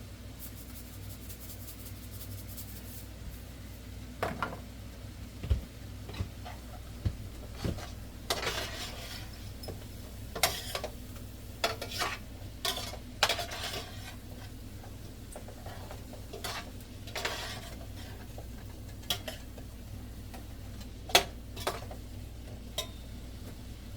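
Utensil stirring and scraping in a cooking pot of vegetables, with scattered clinks of metal on the pot, clustered in the middle. A steady low hum runs underneath.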